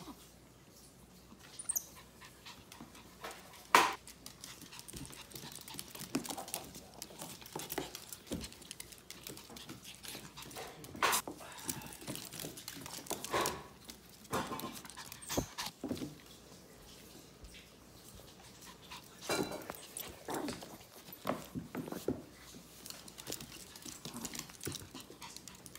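A chihuahua and a capuchin monkey rough-playing: scattered short dog vocalizations amid scuffles and bumps on a wooden floor, with a sharp knock about four seconds in.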